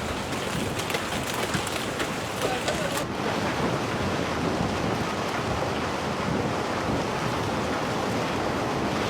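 Rushing floodwater: a steady wash of water noise, with a fine crackle over it for the first three seconds.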